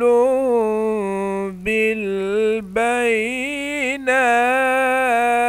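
Solo male Qur'anic recitation: a reciter drawing out long, ornamented melodic phrases in maqam Sikah, with brief breaths between them. The reciter himself calls his voice clearly exhausted here, too tired to reach the high registers.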